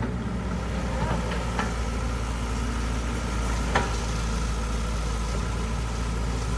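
Engine idling steadily with a low hum, with a couple of faint clicks and one sharp metallic knock a little under four seconds in.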